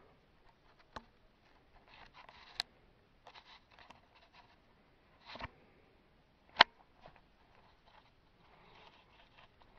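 Light handling noise: scattered rustling and soft clicks, with one sharp click about six and a half seconds in.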